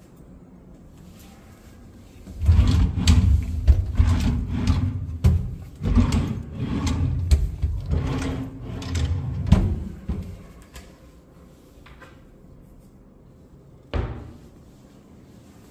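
Wooden wardrobe doors and drawers being handled: a run of knocks, bumps and rubbing that starts about two and a half seconds in and lasts some seven seconds. A single sharp click follows near the end.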